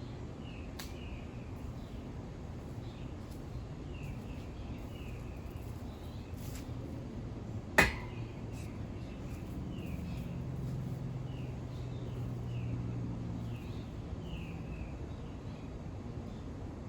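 A bird chirping over and over in short, downward-slurred notes, with a single sharp click about eight seconds in and a low hum for a few seconds in the middle.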